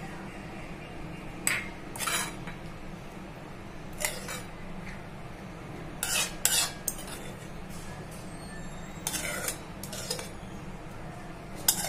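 Metal spoon scraping and clinking against a metal kadai as thick sauce is scooped out into a bowl: a handful of short, separate scrapes a second or more apart, over a steady low hum.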